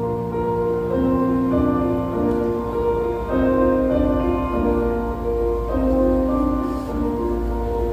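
Instrumental accompaniment on a keyboard: a melody of held notes over chords and a steady low bass, the notes changing about every half second to a second, with no voices.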